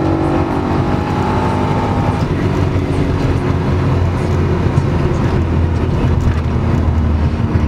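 Holden VR Commodore's 4.9-litre V8 heard from inside the cabin, pulling hard near 5,800 rpm. About two seconds in, the engine note thins as the revs fall back toward 4,800 rpm and the car slows.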